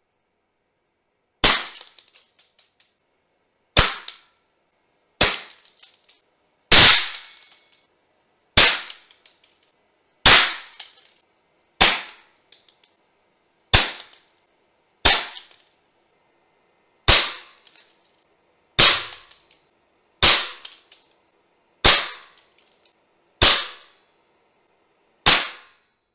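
Crosman pellet air rifle firing fifteen shots, one about every one and a half to two seconds, each a sharp crack that dies away quickly. The shots are edited back to back with the reloading cut out.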